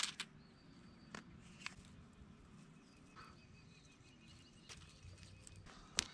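Faint outdoor background with thin, distant bird chirps, broken by a few sharp clicks and snaps of dry twigs being laid over a smoking fire starter in a steel fire pit; the loudest snap comes near the end.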